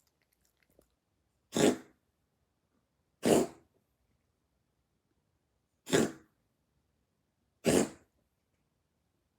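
A cat coughing: four short coughs spaced about two seconds apart, which the owner fears could be a sign of heart disease.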